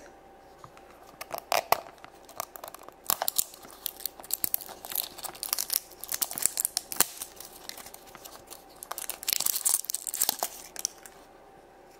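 A blind-pack toy wrapper being torn and peeled off a plastic seashell capsule, with irregular bursts of sharp crinkling and tearing. It starts about a second in and dies away about a second before the end.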